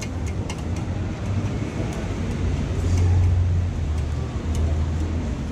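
Metal takoyaki picks clicking lightly and irregularly against the takoyaki pan as the balls are turned, over a steady low rumble that swells about three seconds in.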